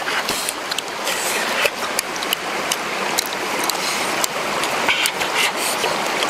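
Steady rush of flowing water, with many short sharp clicks and smacks from hands pulling apart grilled fish and mashing it into chili sauce in a stone mortar.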